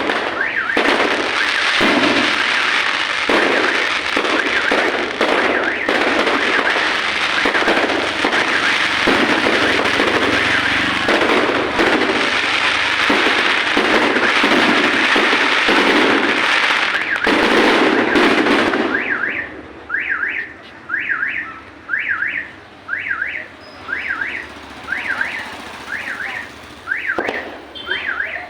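Fireworks finale: a dense barrage of crackling bursts and bangs that stops abruptly about two-thirds of the way through. A car alarm then sounds, a repeating electronic chirp in quick pairs a little over once a second.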